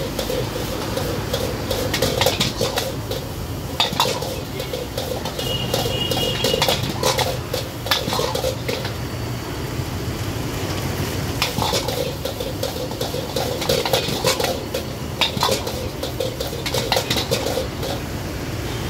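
Metal ladle and spatula clanking and scraping against a steel wok as fried rice is stir-fried, in irregular strikes, over the steady noise of a high-flame gas burner.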